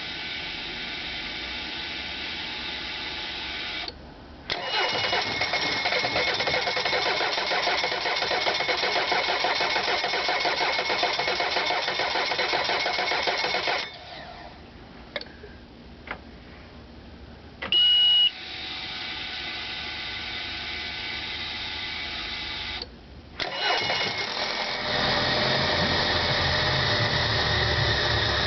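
Mercury 90 hp four-stroke EFI outboard being started: a short high beep and a steady hum, then the starter cranking for about nine seconds without the engine catching, which is the hard starting. A second beep and hum follow, then the engine turns over again near the end.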